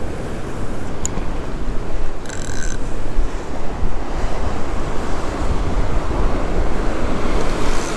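Strong wind buffeting the microphone over the steady rush of rough surf breaking below a pier. A sharp click sounds about a second in, and a brief high buzz about two seconds in.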